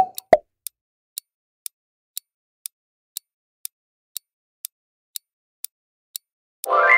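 Countdown-timer sound effect: a short pop, then a clock ticking evenly about twice a second. Near the end a bright multi-tone chime rings out and slowly fades, signalling that time is up.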